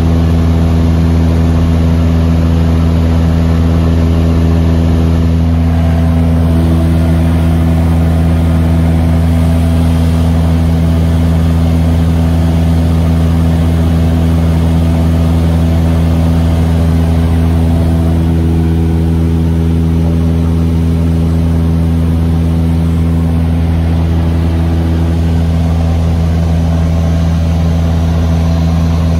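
A light aircraft's piston engine and propeller droning steadily in cruise, heard from inside the cockpit. It is a loud, unchanging hum with a deep fundamental and a stack of evenly spaced overtones.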